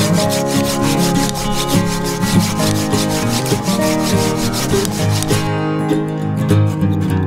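Folding pruning saw cutting through the base of a persimmon tree trunk in quick, even strokes, which stop about five and a half seconds in. Background music plays throughout.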